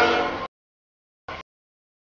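Freight locomotive air horn chord fading, then cut off abruptly about half a second in. This is followed by dead silence, broken once by a brief snatch of train noise.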